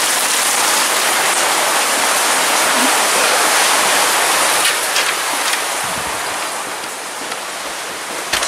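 Heavy downpour of rain, a dense steady hiss that eases a little over the last few seconds, with a sharp click near the end.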